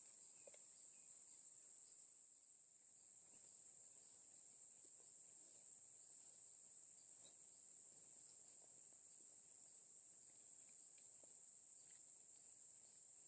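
Faint, steady high-pitched insect chorus, a continuous chirring with a few faint ticks over it.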